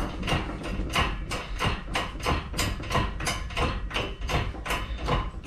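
A steady run of sharp knocks, about three a second, typical of repeated hammer blows.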